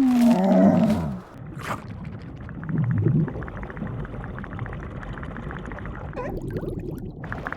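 Cartoon burps: a deep burp falling in pitch in the first second, then after a short gap a long, buzzing burp lasting a few seconds.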